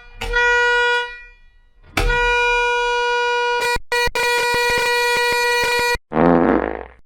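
Edited bus horn sound-effect variations: a short horn blast, then a long steady blast of about four seconds, cut briefly and crossed by rapid clicks. It ends with a short warped, wavering version of the horn.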